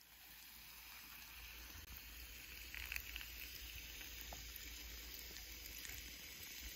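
Carbonated soda pouring in a thin stream into a glass over ice, fizzing with a faint, steady hiss.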